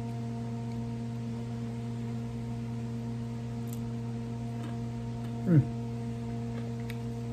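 A steady low hum with several higher tones stacked above it, and a few faint ticks. About five and a half seconds in, the eater makes one short voice sound that slides down in pitch, like a quick 'ooh'.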